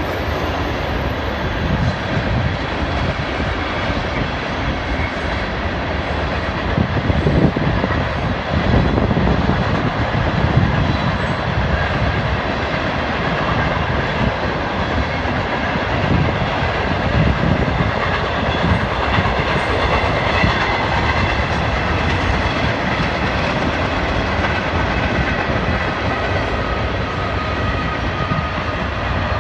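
Freight train of covered hopper cars and autorack cars rolling past: steady wheel-on-rail noise, a little louder for a few seconds about a quarter of the way in.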